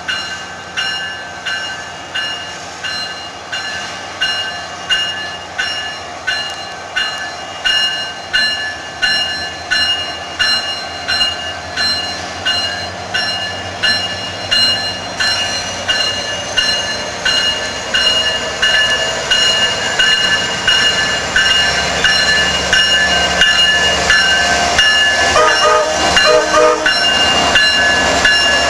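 Railroad crossing warning bell ringing steadily, about one and a half strikes a second. In the second half the rumble of the Virginia Railway Express diesel locomotive and its train grows louder as it pulls past.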